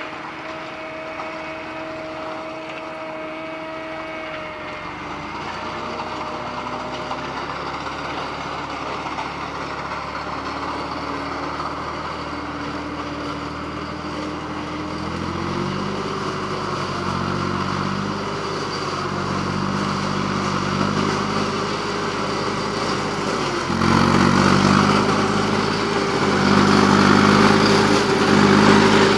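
Compact tractor running a forage harvester as it cuts standing maize for silage: steady engine and chopper drone. It grows louder as the rig draws closer, with a jump in level about five seconds before the end.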